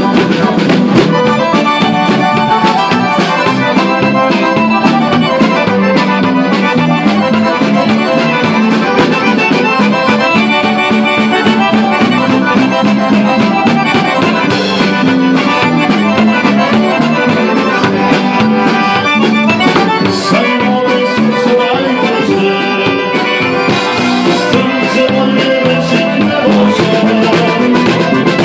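Live band playing an instrumental passage of a Croatian folk tune, led by a piano accordion over acoustic guitar and a drum kit keeping a steady beat.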